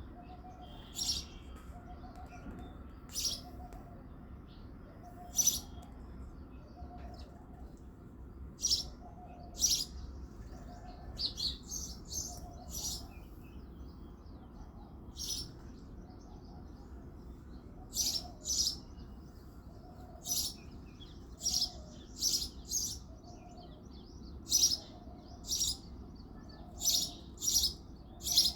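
Male house sparrow chirping: short, sharp, high chirps, one at a time or in quick runs of two or three, with pauses of a second or more between them. The chirps come more often in the second half.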